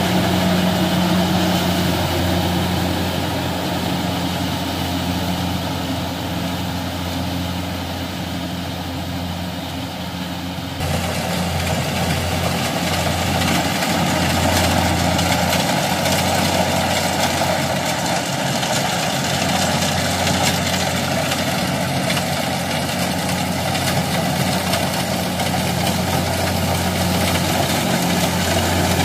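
Kubota DC-70 combine harvester's diesel engine and machinery running steadily with a low, even hum as it cuts rice. The sound eases a little over the first ten seconds, then jumps louder and fuller about eleven seconds in and stays level.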